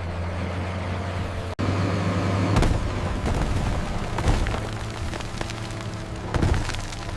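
Heavy bulldozer diesel engine running steadily, with several loud thuds and cracks, about two seconds apart. The sound drops out for an instant about a second and a half in.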